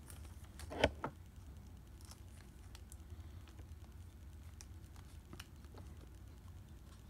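Faint handling sounds of a baseball card being slid into a plastic penny sleeve: a short louder rustle and tap about a second in, then scattered light ticks and crinkles over a low steady hum.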